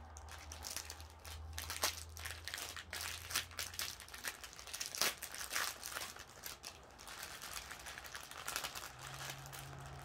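Small clear plastic bags of diamond-painting drills crinkling and crackling in irregular bursts as they are handled and unwrapped by hand. A faint low hum sits underneath.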